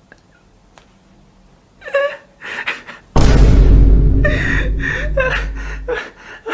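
A man laughing in short gasping bursts. About three seconds in, a loud low rumble cuts in suddenly under the laughter and stops about three seconds later.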